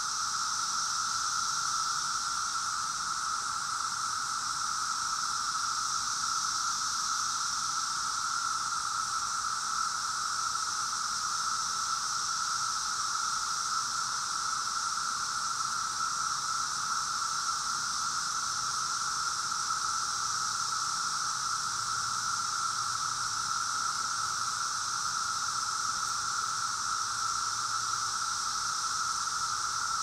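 Chorus of cicadas calling in a steady, unbroken drone at one constant pitch, with a fainter, higher hiss above it.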